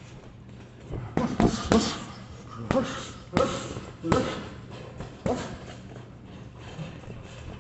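Boxing gloves punching hanging heavy bags: about ten sharp thuds in short combinations, with brief gaps between them.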